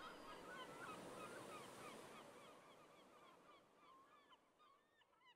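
Faint calls of a flock of birds, many short chirps overlapping, fading away towards the end.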